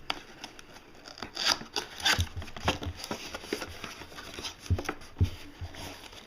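Cardboard box and packaging being handled and opened: irregular crinkling, rustling and light knocks, loudest about one and a half to two seconds in.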